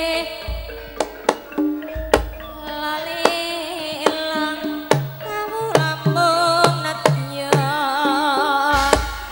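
Live Javanese dance music: a woman sings a melody with heavy vibrato over sharp hand-drum strokes. A run of repeated low bass notes comes in the middle.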